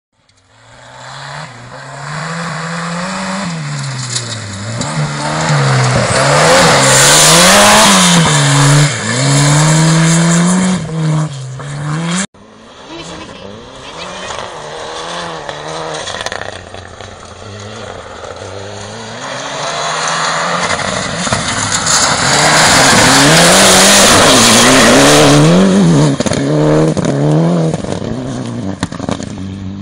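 Rally cars at full throttle on a gravel stage, the engine revving high and dropping again and again with gear changes and lifts, loudest as each car goes by. The sound cuts off sharply about twelve seconds in and a second car's run builds up.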